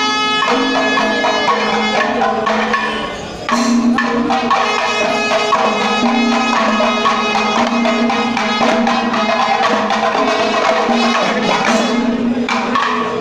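Panchavadyam temple ensemble playing: timila hourglass drums struck in a dense, fast rhythm over steady held tones. The sound drops briefly about three seconds in, then comes back at full strength.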